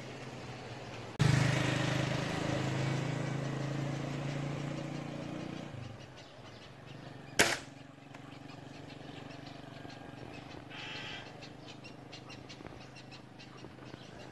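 A single sharp shot from a pre-charged pneumatic air rifle about seven seconds in. Before it, a louder rushing noise with a low hum starts suddenly about a second in and fades out over some five seconds.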